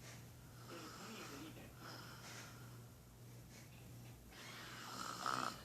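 A sleeping woman snoring: slow, noisy breaths, ending in a louder snort near the end. A steady low hum runs underneath.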